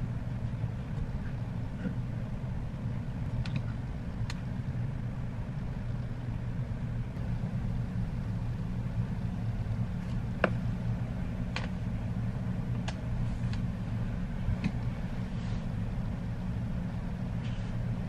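A steady low hum, like a motor or engine running, with a handful of short, light clicks scattered through it; the sharpest click comes a little past the middle.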